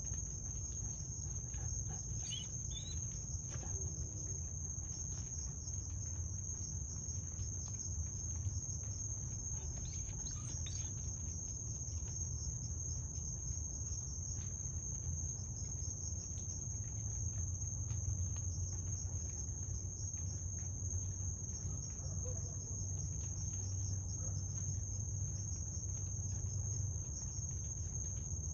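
Night insects, crickets, trilling without a break at one high steady pitch, over a low steady rumble.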